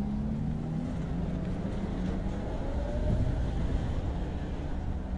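Low, steady rumble of vehicles and street traffic, with a faint rising whine about two to three seconds in.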